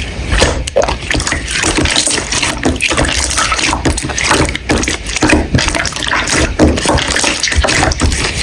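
Slime being squeezed and kneaded by hand: a dense, irregular run of wet squelches, pops and crackles.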